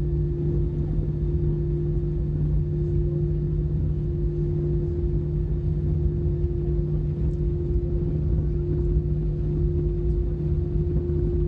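Airbus A320 jet engines running at a steady power setting, heard as a steady low drone with a constant hum that does not change in pitch.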